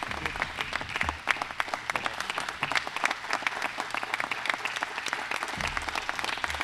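Audience applauding: many hands clapping steadily, with a couple of brief low thuds about a second in and near the end.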